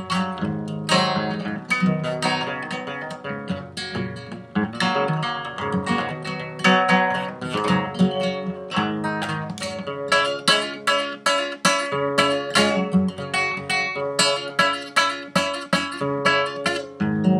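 Classical acoustic guitar played by hand, a run of picked notes and chords; from about ten seconds in it settles into an even strummed rhythm of roughly two strokes a second.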